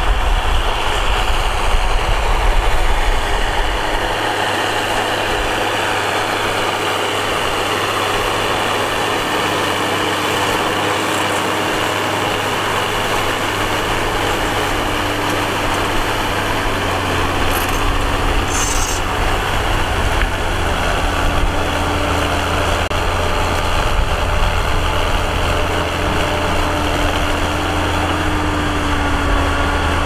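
A John Deere tractor's diesel engine runs steadily under load as it pulls a disc harrow through dry soil. Its low note changes about 4 seconds in and again around 17 seconds.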